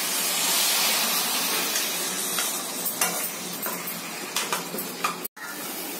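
Chicken, onion and masala sizzling in a stainless steel kadai with a little water just poured in, the hiss strongest at the start, while a steel ladle stirs and scrapes the pan with a few metal-on-metal clicks.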